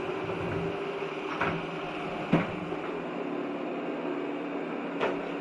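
Shark RV1001EA robot vacuum running with a steady motor and brush hum, with three knocks, the loudest a little over two seconds in.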